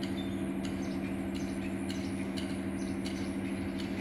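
Steady low mechanical hum, with short high chirps, likely birds, scattered over it.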